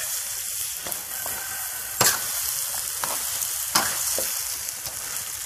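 Wild boar meat and bones sizzling in hot oil and rendang spice paste in a steel wok, stirred with a metal spatula. The spatula scrapes the wok and clanks sharply against it about two seconds and four seconds in.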